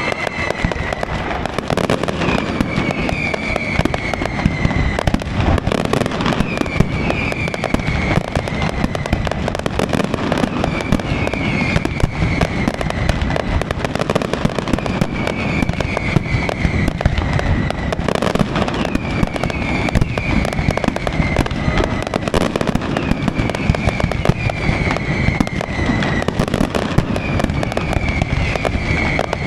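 Fireworks display: a dense, unbroken barrage of rapid bangs and crackles, with a high whistle that falls in pitch, repeated about every two seconds.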